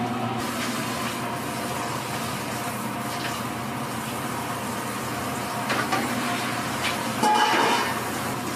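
Steady mechanical hum of a street-food kitchen, with light clinks of stainless-steel bowl and ladle against the tteokbokki tray. Near the end there is a louder metallic scrape and clatter as the steel bowl of fish cake sheets is handled at the tray.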